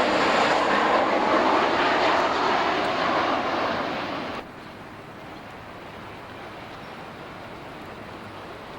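A loud, steady rushing roar that eases slightly, then cuts off abruptly about four and a half seconds in, leaving only a faint steady hiss.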